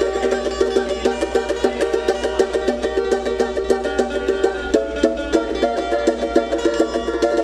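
Banjo strummed with a pick in a fast, steady, even rhythm during a sound check, many strokes a second with a bright attack on each.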